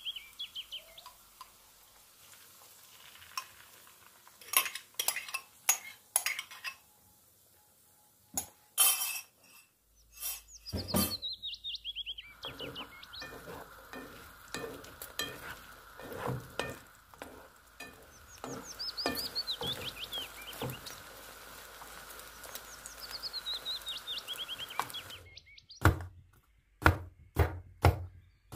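Sausage and egg frying in a non-stick pan: clinks and scrapes of a spoon against the pan, and a steady sizzle from about twelve seconds in. A small bird sings a falling trill several times, and near the end a crinkle cutter chops through a cucumber on a wooden board in a series of sharp knocks.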